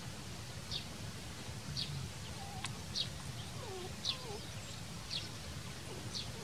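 Baby chick peeping repeatedly, about one sharp high peep a second. A few fainter, lower wavering calls come in around the middle, over a steady low background rumble.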